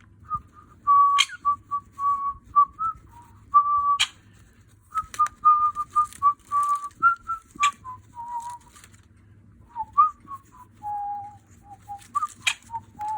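Cockatiel whistling a tune in short, clear notes, mostly on nearly the same pitch with small steps up and down and a lower run near the end, with a few sharp clicks in between.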